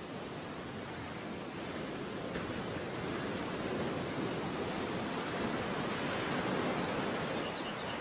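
Sea surf: a steady wash of waves, swelling louder over a few seconds toward the end.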